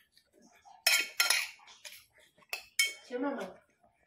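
Metal spoon clinking and scraping against a ceramic bowl while eating, a few sharp clinks: two about a second in and two more near three seconds.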